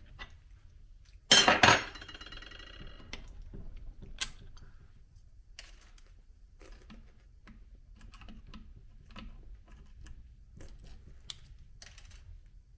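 A sharp metallic clink about a second in that rings briefly, then another click and scattered light taps and clicks of metal tools and parts being handled on the engine block.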